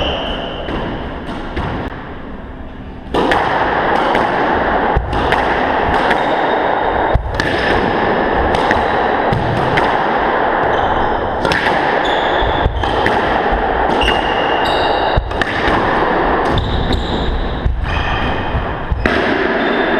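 Squash rally: sharp cracks of the ball off rackets and walls about every second, with short high squeaks of court shoes on the hardwood floor. A steady rushing noise comes in about three seconds in.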